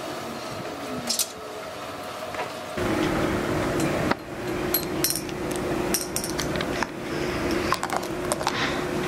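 Scattered light clicks and clinks of small objects handled close to the microphone, over a steady low hum that comes in about three seconds in.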